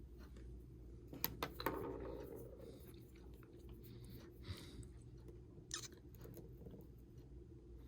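Faint handling noises from work on an iPhone 6: a few light clicks about a second in and again near six seconds, with a short soft rustle around two seconds.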